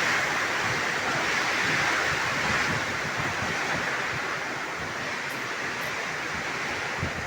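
Heavy rain pouring down in strong wind, a steady loud hiss, with gusts buffeting the microphone in low rumbles, the strongest near the end.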